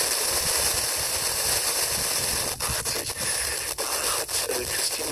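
FM radio static from a TEF6686 receiver: a steady hiss with no usable signal, broken by scattered sharp clicks and crackles in the second half.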